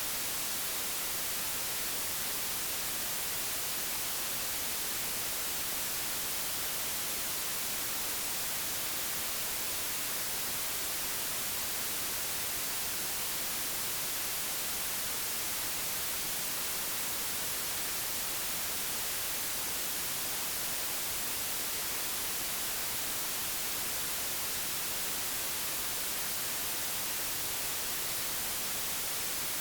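Digitally generated white noise: a steady, even hiss with no changes, brightest in the high frequencies.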